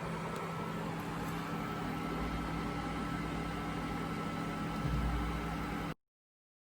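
Steady low mechanical hum with a faint steady whine, like a running appliance or fan, swelling briefly near the end and cutting off abruptly.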